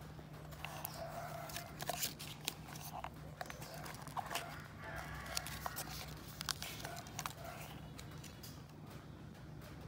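Scattered light clicks and taps from handling wristwatches and their packaging, over a steady low hum, with faint animal calls in the background.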